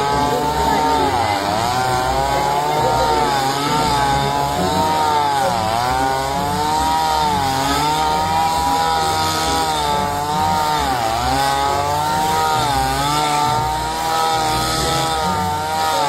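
Small petrol engine of a grass-cutting machine running at high revs, its pitch dipping briefly several times as it bogs down cutting into grass, then picking up again.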